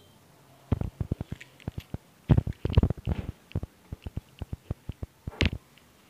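Irregular clicks and knocks of hard objects being handled, with the loudest knocks about two and a half seconds in and near the end.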